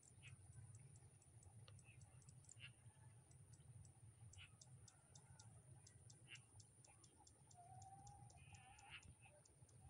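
Near silence: faint open-field ambience with a rapid, even ticking about four times a second and a thin, steady high tone. There are a few faint chirps, and a short wavering whistle near the end.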